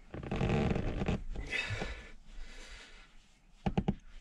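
A man breathing hard and straining while he pushes an overhead cabin panel up into place, with heavy noisy exhalations, loudest at the start. Near the end comes a quick run of four short taps.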